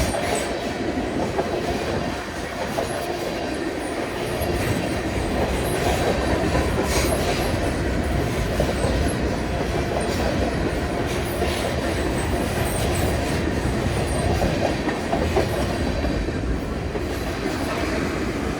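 CN manifest freight train rolling past, a steady rumble of railcars with wheels clacking now and then over rail joints.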